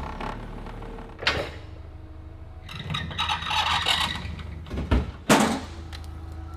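A forklift runs and lifts a stripped Porsche race car shell on its forks. A steady low hum runs throughout, with a stretch of rattling hydraulic work in the middle and sharp metal clunks about a second in and again near five seconds.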